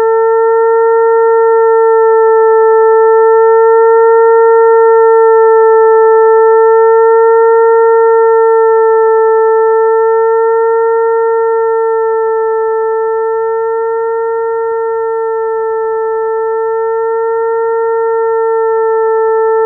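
Electronic mosquito-attracting tone imitating a mosquito's wing buzz: a steady, loud hum with a slight wobble in pitch, slowly swelling and fading in loudness.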